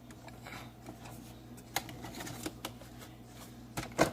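Small plastic clicks and rustles of a Freedom Clip being handled and fitted onto a Keurig 2.0 coffee brewer, with a sharper click near the end.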